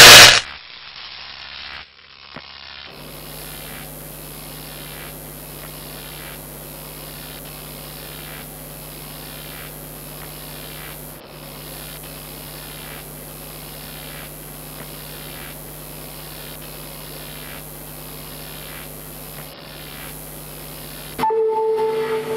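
Steady electrical hum with hiss, after a brief loud sound-effect burst at the very start. About a second before the end, loud music cuts in suddenly.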